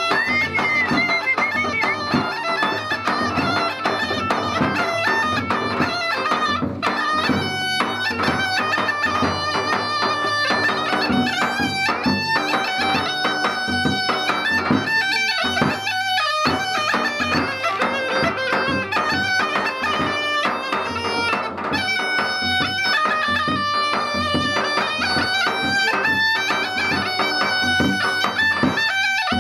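Balkan goatskin bagpipe (gaida) playing a folk melody over its steady drone, with a large double-headed drum beaten alongside.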